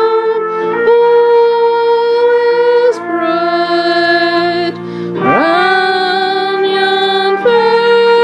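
Voices singing a slow Christmas carol in long held notes, with a sliding rise in pitch about five seconds in.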